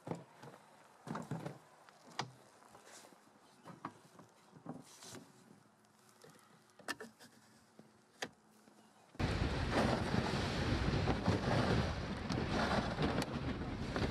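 Quiet with a few scattered light clicks and knocks, then about nine seconds in a sudden switch to a loud, steady rushing rumble: riding in a tub towed behind a tracked robotic vehicle over a trail, with wind on the microphone.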